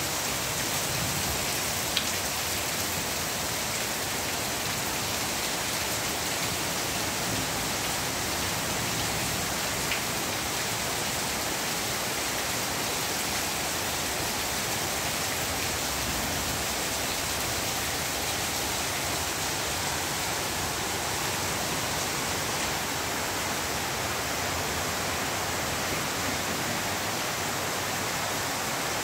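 Heavy rain falling steadily, a dense even hiss, with a couple of faint sharp ticks of drops hitting something nearby about two and ten seconds in.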